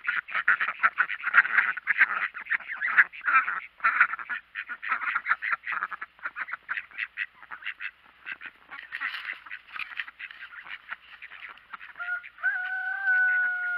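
A flock of domestic ducks quacking and chattering in rapid, overlapping calls. Near the end a single long, steady note is held for about a second and a half.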